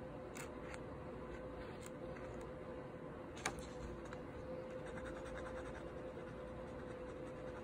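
Faint scratching of a black fine-tip pen drawing on paper, with a few light taps, a sharper click about three and a half seconds in, and a quick run of short strokes between about five and six and a half seconds in. A faint steady hum runs underneath.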